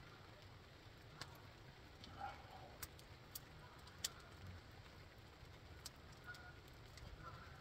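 Near silence, with a few faint, scattered pops from a small campfire crackling.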